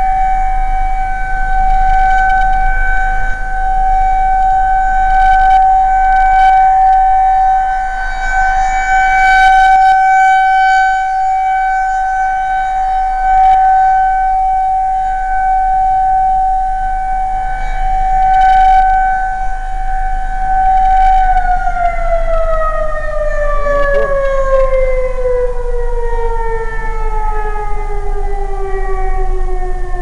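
Pole-mounted outdoor warning siren, running on battery backup, holds a steady wail whose loudness swells and fades as the horn rotates. About two-thirds of the way in it is switched off and winds down, its pitch falling steadily.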